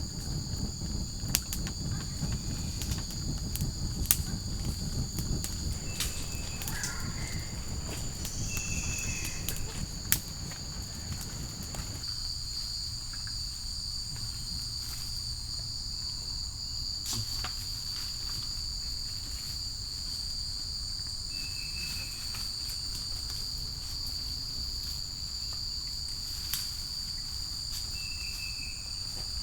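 Steady chorus of forest insects buzzing at two high, unchanging pitches, with a few short high chirps now and then. Scattered sharp clicks and a low rumble sit under it and stop about twelve seconds in.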